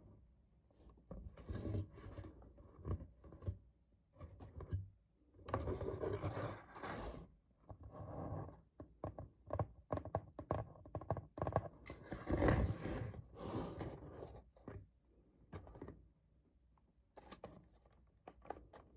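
Hands scraping, scratching and tapping on a cardboard keyboard box while it is handled and opened, in irregular bursts with short clicks, loudest about twelve seconds in.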